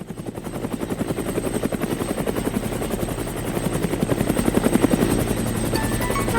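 Helicopter rotor sound, a rapid even chopping beat that fades in and grows louder.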